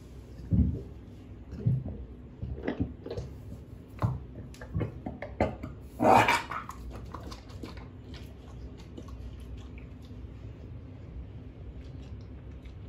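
Rottweiler puppy retching: a series of short heaves roughly a second apart, then a louder, longer heave about six seconds in as it vomits a little onto the tiled floor. The vomiting is a sign of the gastric illness that the owner feared was gastro or parvo.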